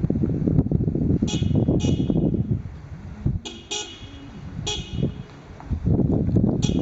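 A car rolling slowly along a gravel road, its tyres crunching on the gravel in a steady rumble that eases twice. A horse walks alongside on the gravel, and there are several short, sharp high clinks about a second or two apart.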